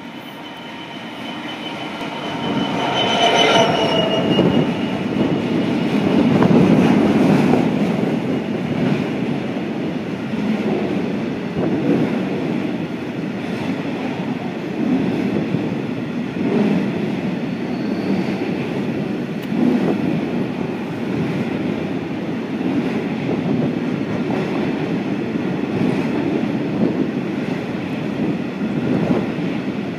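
A Class 66 diesel locomotive passes close by at the head of a coal train. Its noise builds to a peak a few seconds in, then gives way to the long steady rumble and clatter of the loaded hopper wagons rolling past.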